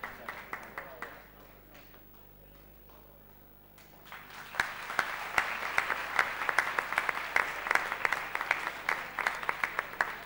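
A small group applauding with sharp individual hand claps. The first round dies away in the first two seconds, and after a short lull a second, louder round starts about four seconds in.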